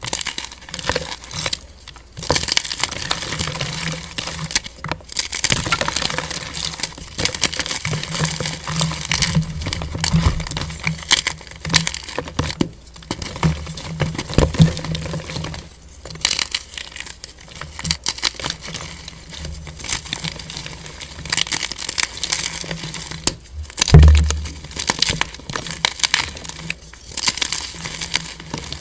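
White gym chalk blocks crushed and crumbled between the fingers: dense, dry crunching and crackling in handfuls with short pauses, and one louder thump late on.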